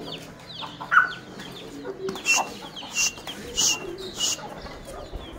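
Aseel chickens clucking, with chicks peeping in short falling chirps. Four short, sharp noisy sounds come in the middle.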